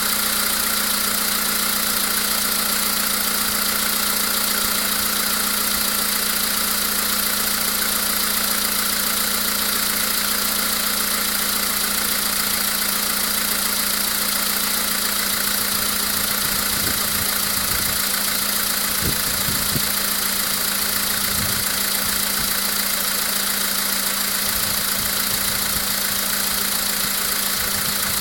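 A 2012 VW Polo sedan's CFNA 1.6-litre four-cylinder petrol engine idling steadily after a cold start, with the knocking this engine makes when cold.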